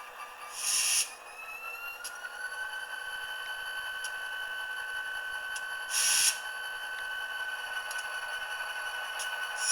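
Recorded EMD SD40-2 diesel engine sound from a model locomotive's LokSound sound decoder, played through a tiny sugar cube speaker. The engine's whine rises in pitch about a second in and then holds steady. Two short bursts of air hiss come about a second in and again about six seconds in.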